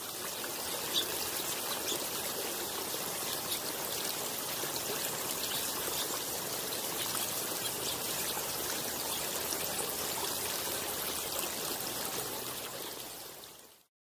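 Water trickling steadily over the stones of a small garden rock fountain.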